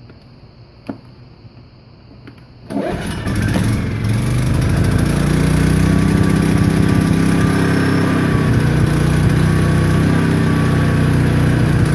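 Champion 3100 inverter generator's engine starting: a click about a second in, then the engine catches a little under three seconds in and settles into steady, even running, really quiet for a generator.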